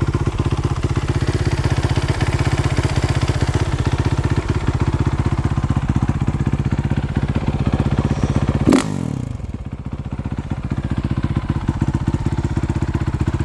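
2017 Honda CRF450R's single-cylinder four-stroke engine idling with a steady, even beat. About nine seconds in, a sharp click is followed by a short drop in pitch and a quieter stretch of a couple of seconds before the engine sound is back at full strength.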